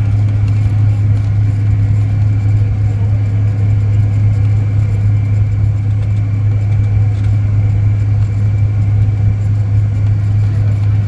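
Steady cabin noise of a jet airliner taxiing, heard from a window seat: a strong, even low hum with a thin steady whine above it from the engines at taxi power.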